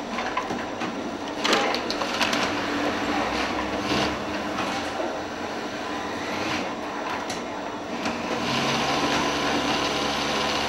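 Several industrial sewing machines running at once, a steady mechanical hum with scattered clicks and short stitching runs. A louder, steadier run starts about eight and a half seconds in.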